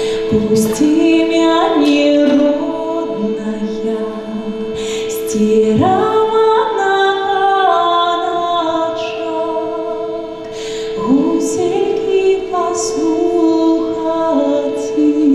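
A solo woman's voice singing a Belarusian folk song in long, sliding phrases over a steady held drone note.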